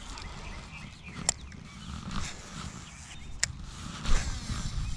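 Wind rumbling on the camera microphone, with a few sharp clicks from handling the baitcasting rod and reel.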